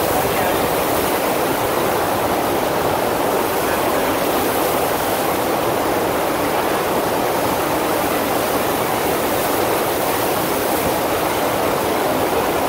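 FlowRider sheet-wave machine running: a thin sheet of pumped water rushing steadily up the sloped riding surface.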